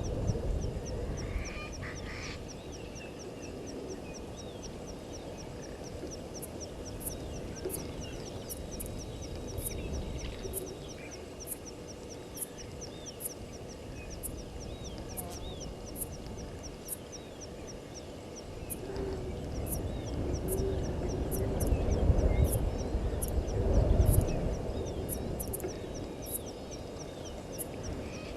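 Waterhole bush ambience: scattered bird calls over rapid, evenly repeating insect ticking, with two louder low rumbling swells about two-thirds of the way through.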